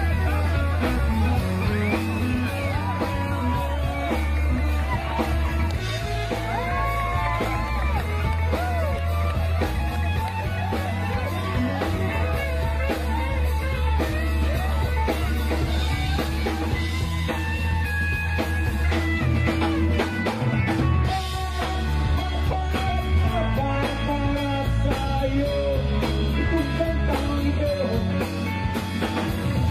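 Background rock music with guitar, a steady bass line and a singing voice.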